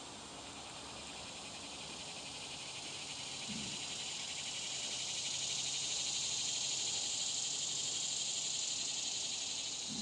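Summer insect chorus: a steady high buzzing with a fast pulsing texture that grows louder toward the middle and eases off near the end.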